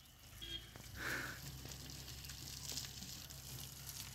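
Faint hiss of water from a garden hose running onto the ground as a car is washed, over a steady low hum.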